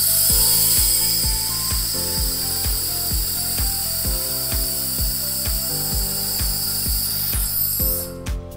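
Handheld 1500 W fiber laser welder welding stainless steel sheet with filler wire: a steady high hiss while the beam runs, cutting off about eight seconds in. Background music with a steady beat plays underneath.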